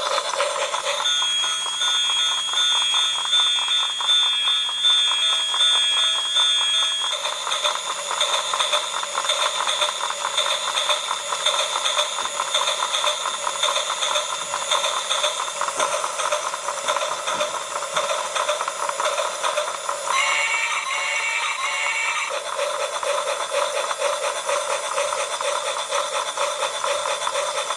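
Battery-operated toy train running on its plastic track, its small motor and wheels giving a fast steady clatter, while its built-in speaker plays electronic sound effects, beeping tones and a simple tune that change every few seconds.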